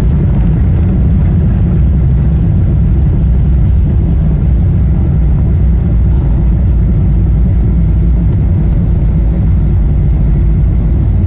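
Steady low rumble inside the economy cabin of a Boeing 777-300ER: its General Electric GE90 engines and airflow heard through the fuselage, even and unbroken.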